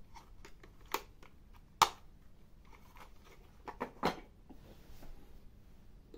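An AA battery being pressed into a quartz clock movement, with a couple of sharp clicks, the loudest about two seconds in. Then a few light knocks near the middle as the 3D-printed plastic stand is turned over and set down on a wooden table.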